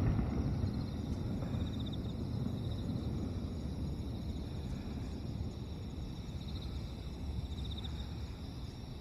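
Outdoor night ambience: a low rumble fades away in the first second, leaving a steady low background noise. Over it an insect trills in short bursts, several times.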